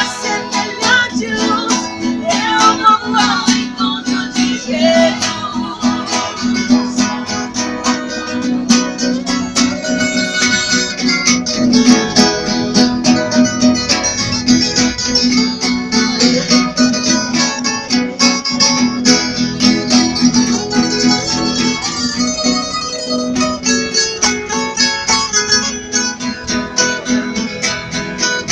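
Brazilian viola caipira and a six-string acoustic guitar playing together, an improvised passage of a gospel hymn, with quick plucked notes over a steady accompaniment.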